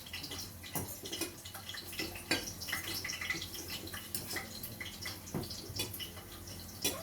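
Hot cooking oil crackling and popping in a pot on the stove, with garlic, hot pepper and thyme frying in it. There are irregular sharp pops, several a second.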